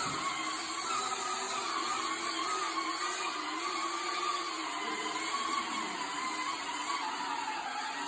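Small electric motor of a battery-powered ride-on toy running with a steady whir, its pitch wavering up and down slightly.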